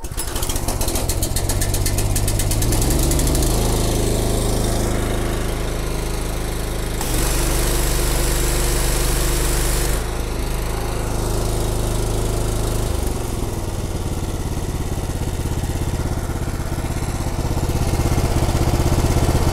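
Honda GX390 single-cylinder engine on a gas pressure washer running steadily after a carburetor repair that cured its no-start. From about seven to ten seconds in, a loud hiss of the high-pressure water jet spraying from the wand joins the engine, which keeps running evenly under the pump's load.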